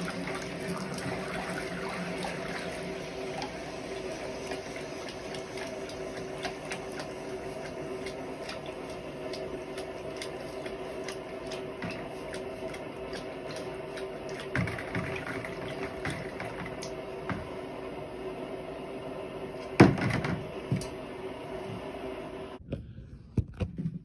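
Hot steel rounding-hammer head quenched in a bucket of water to harden it: the water bubbles and hisses steadily with scattered small crackles. A single sharp knock comes a few seconds before the end, and soon after the bubbling cuts off.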